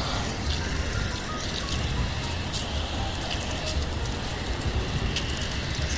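Outdoor city street ambience: a steady low traffic rumble with frequent light clicks, and now and then a short high note.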